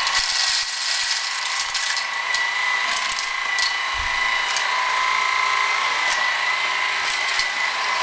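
Cordless Swivel Sweeper electric sweeper, with a 7.2-volt rechargeable battery, running with a steady high motor whine while its brushes pick up dry food bits from a tile floor. A dense crackle of debris being swept up comes in the first couple of seconds, then scattered sharp ticks.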